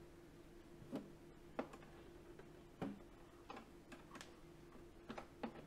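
Faint, scattered clicks and taps of hands handling the plastic water-tank housing of a Philips LatteGo bean-to-cup coffee machine, about eight light knocks spread unevenly over a few seconds.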